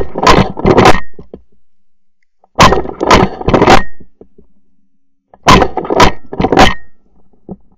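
Shotgun fired three times, about three seconds apart, each a loud sharp blast followed by a quick run of cracks over about a second, heard close up from a camera mounted on the gun.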